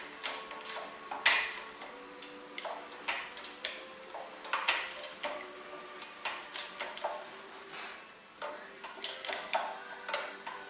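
Irregular metallic clicks and knocks from a hydraulic shop press as a 3 mm steel strap is squeezed into a forming die to bend a saddle clamp, about one every half second to second and a half, over a steady low hum.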